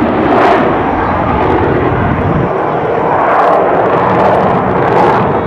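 F-15E Strike Eagle's twin Pratt & Whitney F100 turbofan engines running in full afterburner, a loud, steady jet roar that swells briefly a few times.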